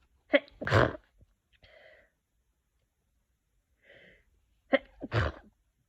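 A person with a beginning cold sneezing twice, about four seconds apart. Each sneeze is a sharp catch followed by a loud burst.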